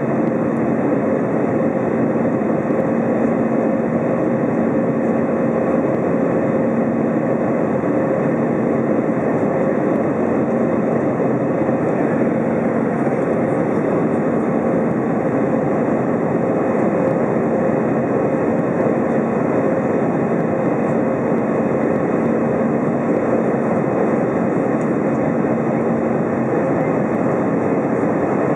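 Airbus A320 cabin noise shortly after takeoff, heard from a window seat over the wing: a steady, unchanging rush of jet engine and airflow noise with a faint steady hum running through it.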